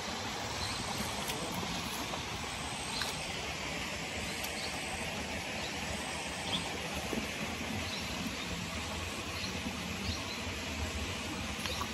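Steady outdoor background hiss with scattered short, high chirps from small birds.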